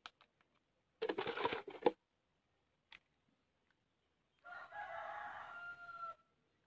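A rooster crowing once, a call of nearly two seconds that begins about halfway through and ends on a held note. Earlier, about a second in, there is a short burst of noise.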